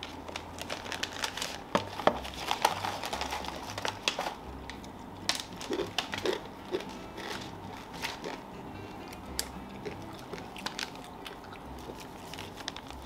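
Plastic snack packets crinkling and rustling as they are handled and shaken out, mixed with crunchy chewing and biting of snacks.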